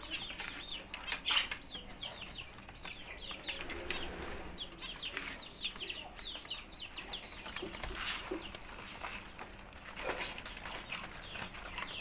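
A busy aviary of small birds and chickens: many short, high, falling chirps repeat quickly throughout, with lower clucking notes and a few sharp knocks from bowls or the cage.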